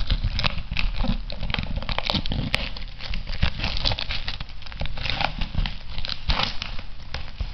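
Clear plastic shrink-wrap crinkling and crackling as it is peeled and pulled off a cardboard box by hand, in a dense, irregular run of crackles.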